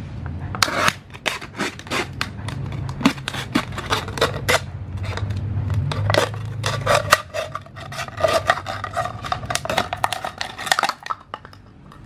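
Folding knife blade cutting through a thin plastic drink bottle: a dense run of sharp crackles and clicks as the plastic crinkles and splits, with a squeaky scraping where the blade drags through it. It stops about a second before the end, leaving a steady low hum.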